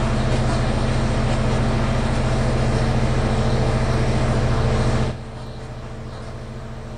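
Diesel power-plant generators running: a loud, steady engine drone with a low hum and fine even pulsing. About five seconds in it drops abruptly to a much quieter steady hum.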